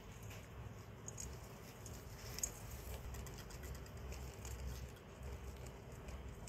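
Faint rustling and light scratching of hamsters shuffling about in wood shavings, with scattered small clicks and one sharper click a little over two seconds in.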